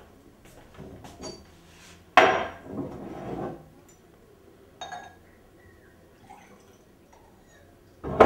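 Glass bottle and drinking glass handled on a wooden sideboard while a drink is poured: small clinks, a loud knock about two seconds in followed by about a second of pouring, a single click near the middle, and another loud knock at the very end.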